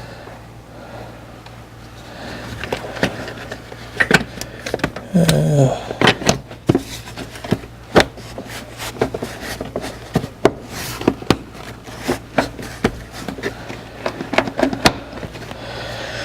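Plastic interior trim being pushed and tapped into place in a car's cabin: rubbing at first, then from about four seconds in a run of sharp clicks and knocks as clips and panel edges are worked into their holes.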